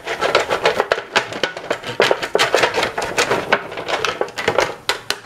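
Silicone pastry brush scraping olive oil over a thin disposable aluminium foil tray, with the foil crackling under it in a quick, irregular run of scrapes and clicks.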